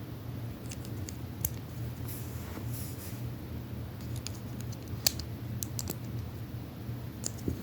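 Scattered light plastic clicks and small rattles of Lego bricks being handled, with one sharper click about five seconds in, over a steady low hum.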